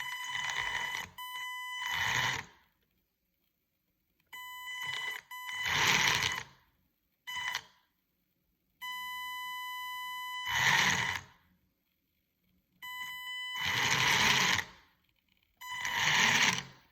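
A machine starting with a high-pitched whine, again and again: each time a steady whine lasts about a second, followed by a louder rushing noise. The pattern repeats about five times.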